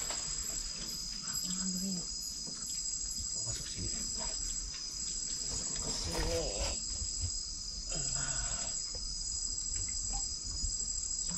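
Chorus of night insects: a steady high-pitched ringing with a higher chirp pulsing evenly above it. Faint low voices murmur now and then.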